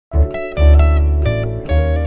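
Background music: plucked notes over a deep bass line.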